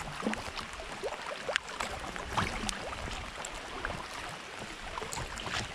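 Steady rain on a river while a kayak moves downstream: many scattered small drips and splashes on the water and the kayak's deck over a wash of moving water, with occasional low thumps.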